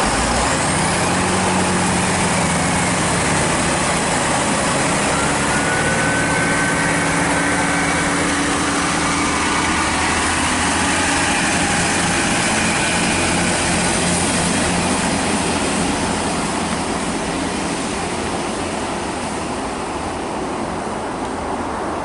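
Diesel multiple unit's engines revving up as it pulls away, the engine pitch rising about a second in, then fading away over the last few seconds.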